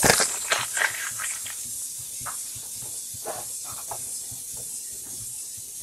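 Hands handling trading cards and their plastic holders on a table: a sharp click at the start, then a few lighter taps and rustles that die away after two or three seconds. A steady high hiss runs underneath throughout.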